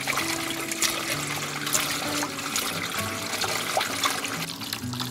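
Tap water runs into a stainless steel bowl and splashes as hands rub and rinse strips of kanpyo (dried gourd). A soft background melody plays along with it.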